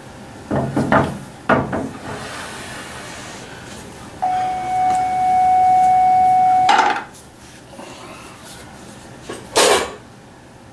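Plaster slip-casting mold and wooden sticks being handled on a slip bucket: a few knocks and clatters of wood and plaster against the bucket, with a steady high squeal lasting a couple of seconds in the middle.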